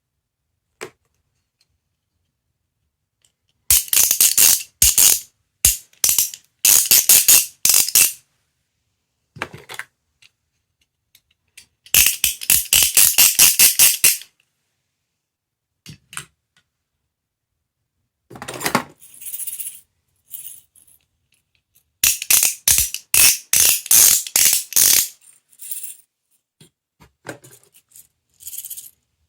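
Sound-effect capsule toy playing a jingling, tambourine-like rattle. It comes in several separate bursts of quick shaken strokes, with silent gaps between them.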